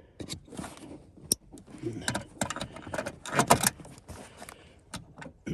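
Sharp plastic clicks and rattles of a replacement fuel pump control module being fitted onto its wiring connector by hand, with a louder burst of clatter a little past halfway.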